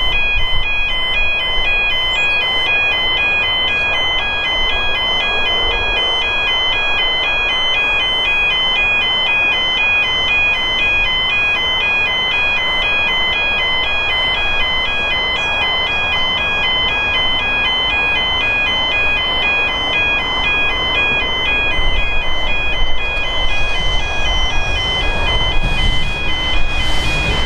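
A railway level crossing's electronic warning bell ringing on and on in a rapid, even two-tone pattern. Near the end a V/Line Sprinter diesel railcar's rumble grows in underneath as it approaches.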